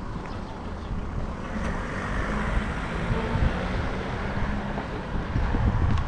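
Wind buffeting the microphone with a low rumble, and an engine running nearby whose steady hum swells in about a second and a half in and fades near the end.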